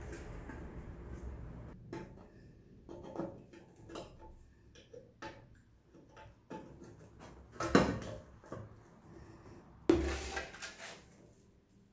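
Plastic body panels of a motorcycle being handled and worked loose with a screwdriver: scattered clicks, knocks and rubbing of plastic, with two louder knocks in the second half.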